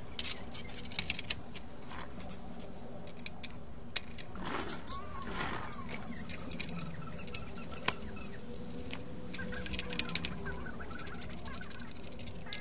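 Scattered sharp clicks and light metal and plastic taps as a PS5 motherboard and its X-shaped metal bracket are handled and seated in the console's chassis, over a steady low hum.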